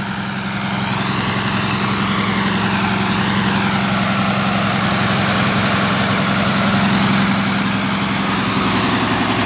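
Engine-driven water pump on a pontoon running steadily, pumping water out of a flooded pit. The engine sound is loud and grows louder over the first two seconds, then holds steady.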